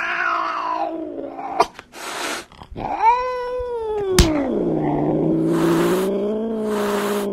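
Cat meowing and yowling: a falling meow at the start, then an arching meow about three seconds in that runs into a long, low, drawn-out yowl. A few sharp clicks break in between the calls.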